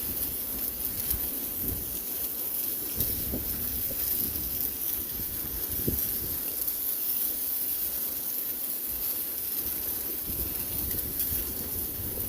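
Steady hiss of falling rain, with uneven gusts of wind rumbling on the microphone.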